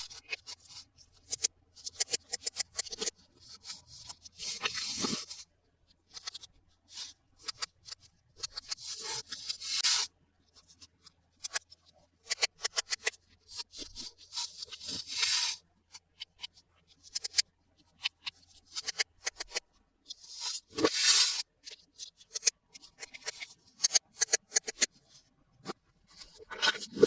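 Toy packaging being handled and opened by hand: irregular crinkling and clicking of plastic and cardboard, with a few longer rustling, tearing strokes.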